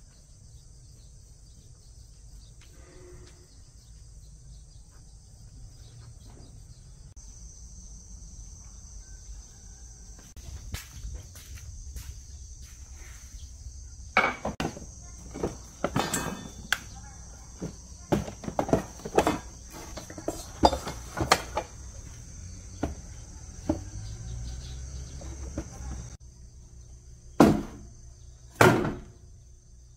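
Wooden parts of an old sewing-machine base knocking and clattering as they are handled and set down. A run of knocks comes about halfway through and two louder ones near the end, over a steady high trill of insects.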